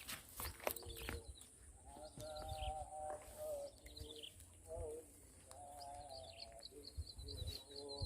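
Outdoor animal calls: several drawn-out, steady-pitched calls about a second long each. From about two thirds in, a bird's fast, high repeated chirping joins them.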